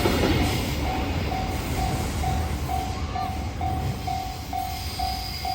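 Freight train rumbling past and fading as it leaves. Through it, a single pitched tone pulses on and off just over twice a second, standing out more as the rumble drops.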